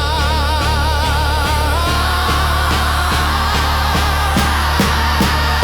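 Gospel-blues song: a singer holds one long note with vibrato over a steady bass line and a regular beat.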